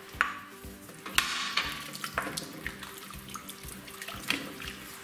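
A wooden spoon stirring chunks of celeriac and apple through vegetable stock in a stainless steel pan: liquid sloshing, with irregular light knocks of spoon and vegetables against the pan.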